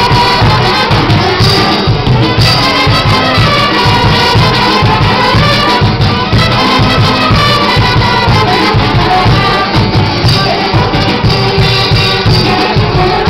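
Music for a Mexican folk dance: a fast, steady low beat with a melody moving over it and shaken percussion.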